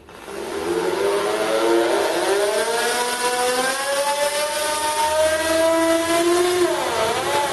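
Tired old AEG variable-speed electric drill running a stepped drill bit, its motor and gear whine rising slowly in pitch for most of the time, then dipping briefly and picking up again near the end. The drill's gearbox is dying, which makes it noisy.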